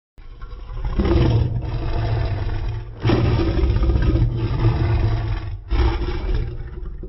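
Godzilla-style monster roar sound effect: one long, deep roar that swells in several surges with short dips between them, then trails off near the end.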